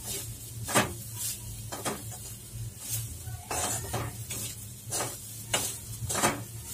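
Metal spoon scraping and knocking against a stainless-steel kadhai as grated fresh coconut is stirred and roasted in ghee, in irregular strokes every half second to a second. A low steady hum runs underneath.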